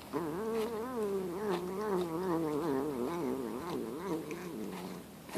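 Domestic cat making a long, wavering, sing-song vocal sound while eating a treat, its pitch wobbling up and down continuously for about five seconds before it stops: the funny "nom nom nom" noise it makes over food.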